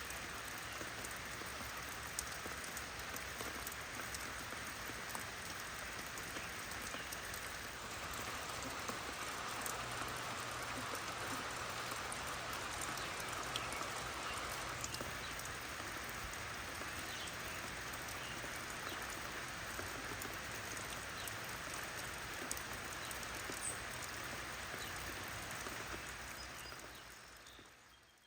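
Steady rain falling: an even hiss with scattered faint drop ticks, fading out over the last couple of seconds.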